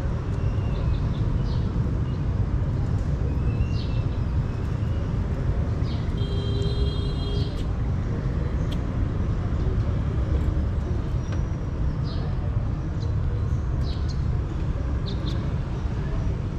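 Outdoor ambience: a steady low rumble, with short bird chirps scattered throughout and a brief high trilling call about six seconds in.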